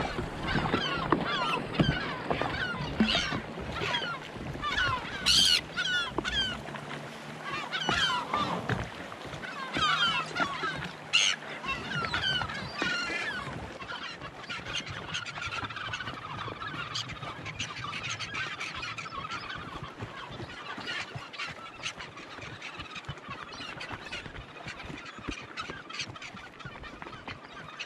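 A large flock of gulls calling around the jet ski, with many overlapping squawks. The calls are loud and dense for the first half and grow fainter and sparser after about fourteen seconds.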